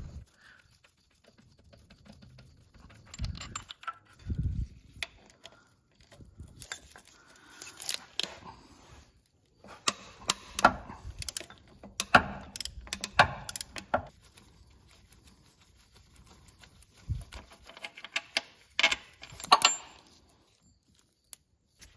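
Irregular metallic clicks and clinks from a long ratcheting wrench working transmission bolts loose from underneath a car. There are a few dull thumps in the first seconds, and the clicking comes in clusters later on.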